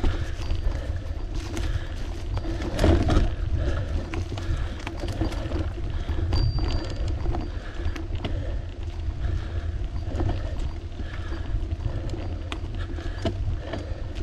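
Wind rumbling on the microphone of a bicycle-mounted camera while riding, with tyre and road noise and scattered small knocks from bumps in the surface. The rumble swells briefly about three seconds in.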